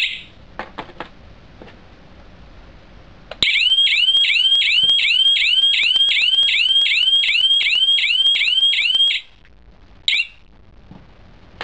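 GSM wireless alarm panel sounding its alarm: a loud, repeated rising whoop, about three sweeps a second, lasting nearly six seconds and then cut off abruptly. A short beep comes at the start, with a few light clicks, and another short beep about a second after the alarm stops, as the key-fob remote is handled.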